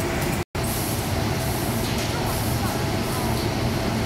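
Steady mechanical din of a sock-boarding machine and the surrounding factory machinery running, with no clear rhythm; the sound cuts out completely for an instant about half a second in.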